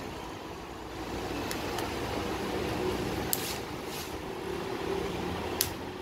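Spring-loaded push-button bolt latch clicking several times as its metal bolt is worked in and out of the plastic body, the sharpest click near the end, over a steady background hum.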